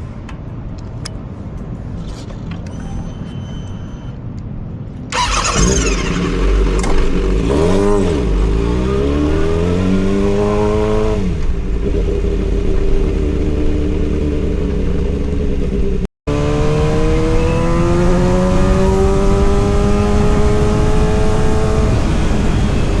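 Kawasaki ZX-6R's inline-four engine: a low steady rumble, then about five seconds in it is opened up sharply, its pitch climbing and falling back several times as it revs. Near the middle the sound cuts out for a split second, then the engine climbs steadily in pitch for several seconds.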